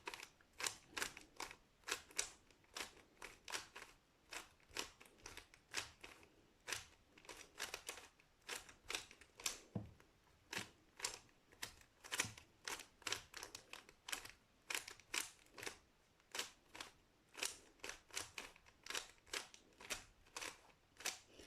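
A 3x3 Rubik's cube being turned by hand over and over, its plastic layers clicking as they snap round, about two or three turns a second in an uneven run, while a solving algorithm is repeated.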